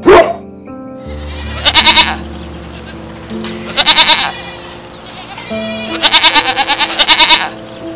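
A short, sharp animal call at the very start, then three wavering, trembling animal calls about two seconds apart, the last one longer, over background music.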